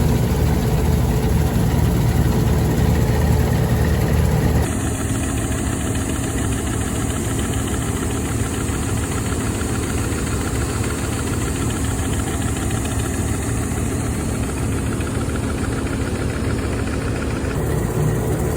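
Engine of an old New Holland Clayson M122 combine harvester running steadily. Its sound changes abruptly in tone about four and a half seconds in and again near the end.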